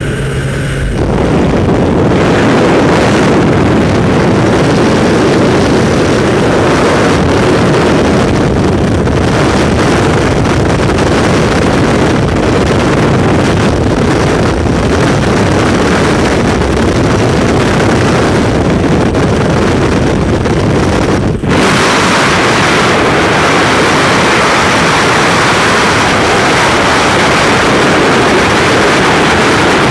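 Jump plane's engines and propeller blast with wind rushing past the open door, a heavy low rush. About twenty seconds in it drops out for an instant as the jumpers leave the aircraft, then gives way to the brighter, hissing roar of freefall wind on the microphone.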